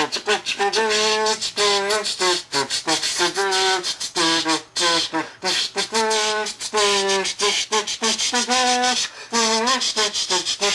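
Theme music: a pitched melody of held notes over a busy, clicking percussion track.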